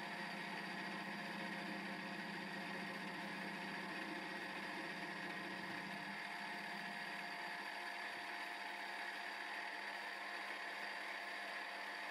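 X3 milling machine running steadily as a small involute gear cutter cuts teeth in a mild steel gear blank. A lower hum drops out about six seconds in.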